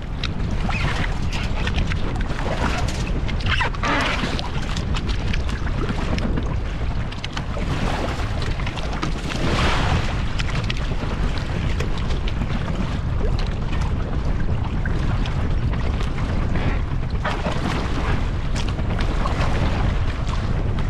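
Wind buffeting the microphone aboard a Hobie Cat catamaran under sail, with hissing swells of water rushing past the hulls now and then.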